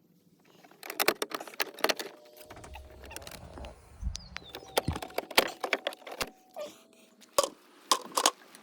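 Irregular sharp clicks, knocks and rattles, as of hard parts being handled, with a low rumble about halfway through.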